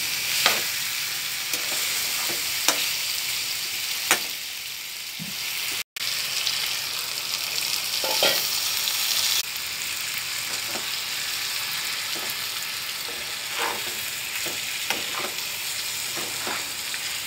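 Chicken curry sizzling as it fries in a pan, with a steady hiss. A metal spatula stirring it clicks and scrapes against the pan now and then.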